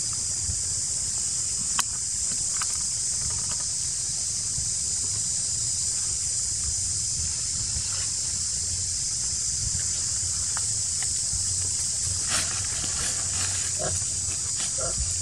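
Steady high-pitched drone of forest insects with a low rumble underneath; in the last few seconds come a handful of short clicks and brief squeaky calls.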